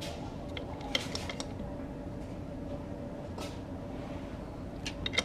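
Small metal parts and tools clicking and clinking as they are handled against a motorcycle engine's underside: a few clicks about a second in, one at about three and a half seconds, and a quick cluster near the end, over a steady low hum.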